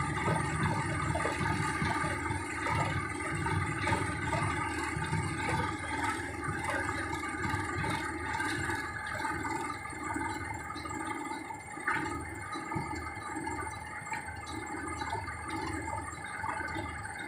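Hydraulic excavator running as it works, a steady engine sound with a constant whine from the hydraulics; the low rumble eases off about halfway through.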